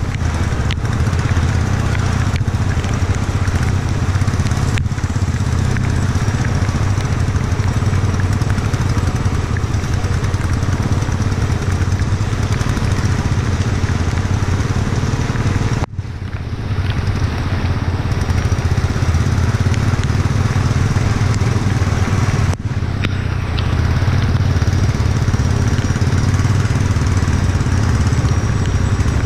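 Motorcycle engine running steadily while riding, with wind and road noise over it. The sound drops out briefly twice, a little past halfway and again a few seconds later.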